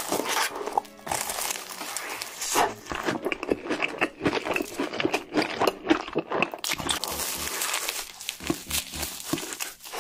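Close-miked ASMR eating: crunching and chewing through Hot Cheetos–crusted fried chicken with black bean noodles, a dense run of crisp crackling crunches.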